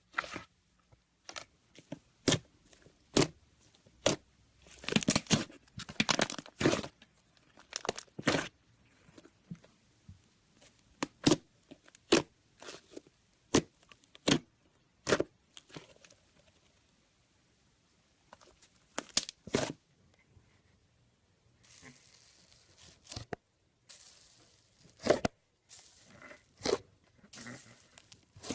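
Slime being squeezed and worked by hand, giving sharp, irregular pops and crackles, some in quick runs, with a quiet spell around the middle.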